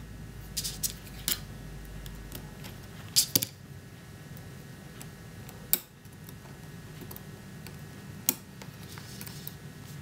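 Scattered small clicks and taps of metal tweezers against a phone's internal parts as a tiny screw is worked out. The loudest are a pair about three seconds in, with single sharp clicks near six and eight seconds.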